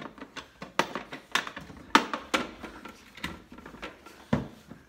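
A series of sharp knocks and clunks, about six irregular hits, as pneumatic nail guns are shifted and set into a hard plastic Milwaukee PackOut ammo can against its divider.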